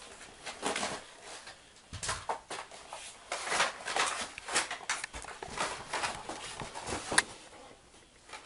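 Cardboard toy box and its plastic packaging being handled and opened: irregular rustling and scraping, with one sharp snap about seven seconds in.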